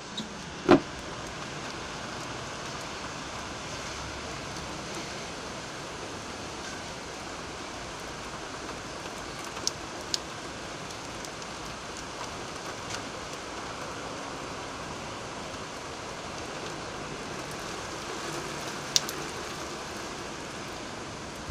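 Heavy typhoon rain falling in a steady, dense hiss. A single sharp knock comes about a second in, and a few brief ticks follow later.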